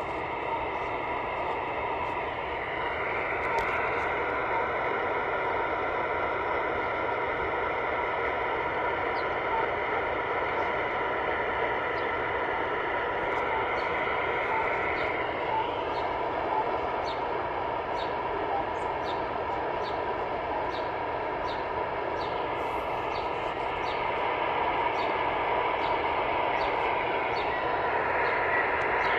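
Panasonic RF-B300 shortwave receiver playing the RWM Moscow time signal in lower sideband: a steady hiss of static with a beat tone and faint short pips about once a second. The tones jump in pitch a few times as the analog receiver drifts off frequency.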